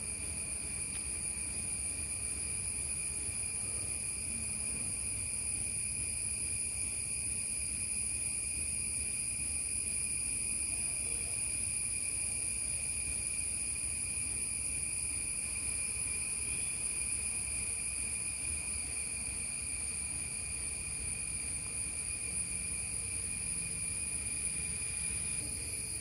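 Steady, unbroken high-pitched trilling of insects, over a low background rumble.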